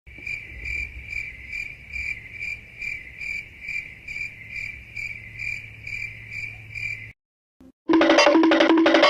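Crickets chirping, the stock 'awkward silence' meme sound effect: a steady high trill pulsing about twice a second, which cuts off suddenly about seven seconds in. About a second later, music with a voice begins.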